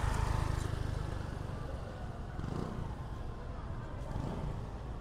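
A motor vehicle's engine passing close by on a city street, its low rumble loudest in the first second or so and then fading away.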